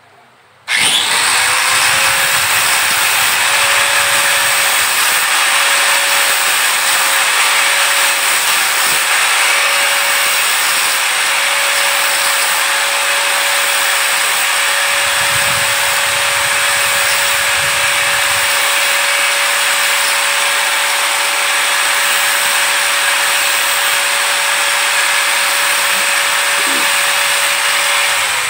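Electric angle grinder switched on about a second in and running steadily with a constant whine, its disc grinding the end of an orange plastic pipe to clean and smooth it. It is shut off near the end.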